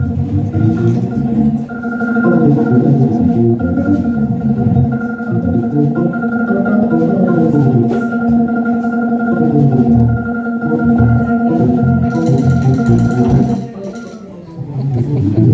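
Live jazz organ trio: a Hammond B3 organ holds a steady chord while moving notes and a bass line run beneath it, with hollow-body electric guitar and drums. The held chord drops away about fourteen seconds in, then the band comes back in.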